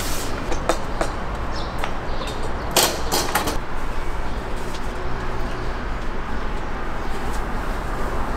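Sharp clicks and knocks of cooking work at a street toast stall over a steady street rumble, with a brief hiss about three seconds in.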